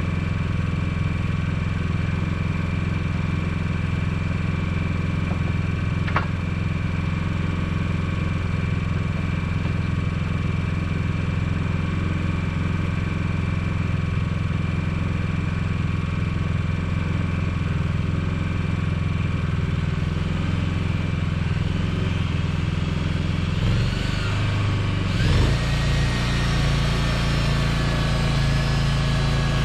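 An engine running steadily at idle, with one sharp click about six seconds in. Near the end its pitch shifts and gliding tones come in.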